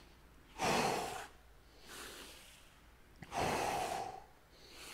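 A man's forceful exhales, twice, about three seconds apart: effort breathing during push-up reps.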